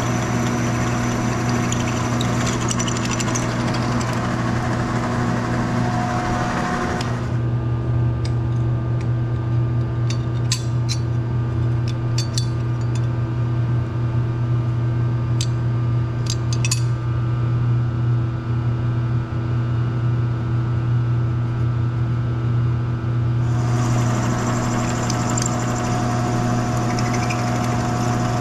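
Milling machine drilling into a steel tube: a steady motor hum under a loud cutting noise for the first seven seconds and again from about twenty-three seconds on. In between, the motor hums on with a few sharp metallic clicks.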